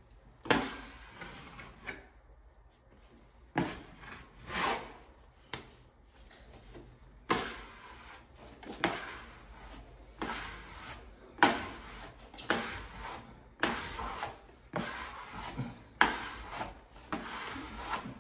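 A hand smoothing tool swept repeatedly across freshly pasted heavy screen-printed wallpaper to press it onto the wall: a string of rubbing swishes, each starting sharply and tailing off, coming about once a second after a slower start.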